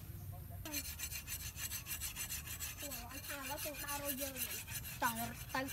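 Rapid rasping scrapes on green wood, starting about a second in. In the second half a wavering pitched sound joins them.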